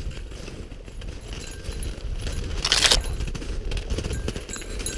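Footsteps crunching in snow and spruce branches brushing and scraping against clothing while pushing through dense brush, with one louder rush of branches about three seconds in.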